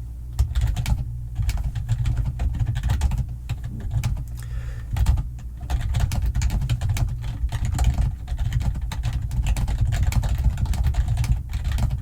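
Fast, irregular typing on a computer keyboard, a dense run of key clicks with a brief pause around the middle, over a steady low hum.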